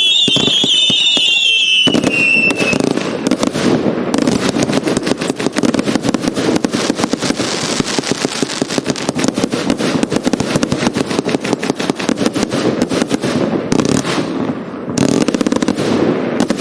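Hallmark 'Dreadnought' firework barrage firing. Whistling shells glide and fade in the first couple of seconds, then a dense, rapid stream of pops and bangs follows, with a brief lull about 14 seconds in before it picks up again.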